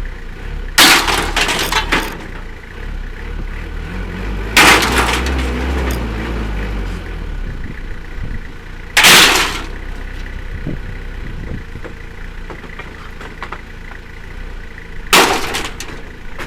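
Loose scrap metal crashing down onto a pile four times, each crash sudden and loud with a short rattling tail, over the low rumble of an idling engine.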